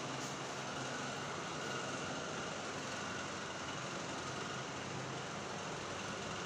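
A steady mechanical hum over an even hiss, unchanging in level.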